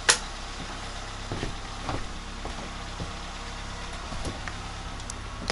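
A sharp click right at the start as a knife-switch breaker is thrown, then a steady low mechanical hum with a few faint knocks.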